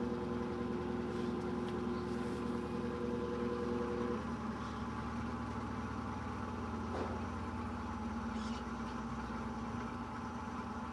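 Electrolux LED14 washing machine in its spin cycle, the motor and drum running with a steady hum. A pair of higher steady tones drops out about four seconds in, and there is a single light click near seven seconds.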